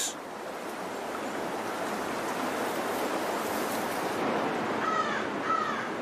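Steady rush of a salmon creek's flowing water, with a bird calling twice, two short calls about five seconds in.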